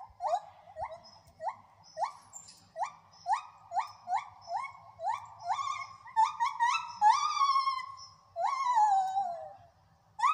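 Gibbons singing: a run of short rising whoops, about two a second, that quicken and climb in pitch, building into a few long notes that slide downward. The song breaks off briefly, then starts again with a new rising note near the end.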